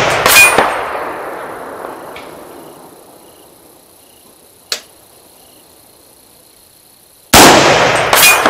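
Rifle shots from a 300 Blackout AR-15 pistol: the long, fading echo of one shot fired just before, with a second sharp crack about a third of a second in, then another shot about seven seconds in, again followed by a second crack under a second later and a rolling decay.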